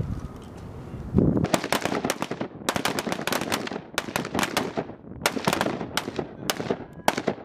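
Several military rifles firing together in rapid, uneven volleys of single shots that overlap one another. The shooting starts about a second and a half in and stops shortly before the end.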